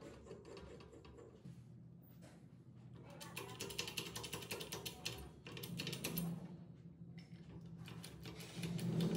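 Restored Blackhawk hydraulic bottle jack being worked by hand: rapid metallic clicking and rattling of the pump handle in its socket, starting a few seconds in and growing louder near the end as the handle is pumped to raise the ram. Faint background music with steady low tones underneath.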